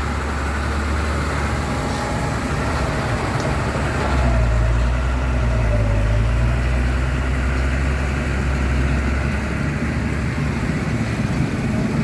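Truck engine running with a steady low drone, growing a little louder about four seconds in.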